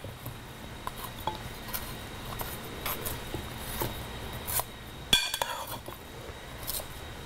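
A metal spoon tossing oil-coated potato wedges in a glass mixing bowl: scattered clinks of the spoon against the glass and soft knocks of the wedges, with a brief run of louder clinks about five seconds in.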